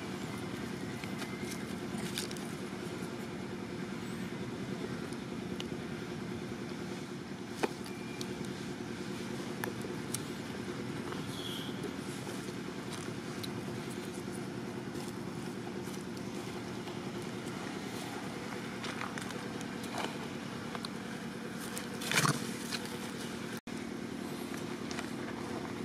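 Steady low hum of a running engine, with a few faint clicks and one short louder noise about 22 seconds in.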